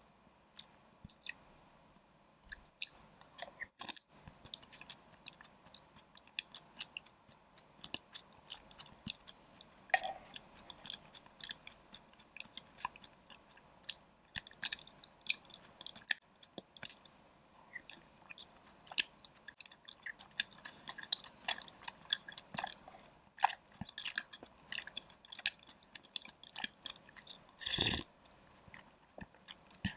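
Close-miked chewing of taro soup's chewy boba and taro balls: a steady run of small wet smacking clicks, with one louder burst near the end.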